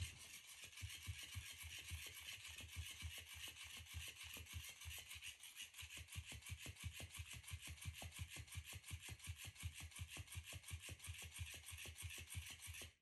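Motorised flopping-fish toy running: its small motor buzzes and the plush fish's tail flaps against the rug in a rapid, even rhythm, then stops abruptly near the end.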